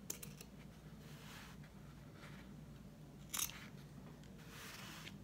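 Scissors cutting stiff felt: a few quiet hissing cuts and a sharp snip about three and a half seconds in, the loudest sound.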